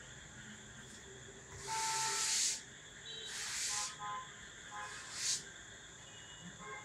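Blackboard duster rubbing across a chalkboard in three hissing strokes, the first and longest about a second long, the last short, as chalk writing is wiped off.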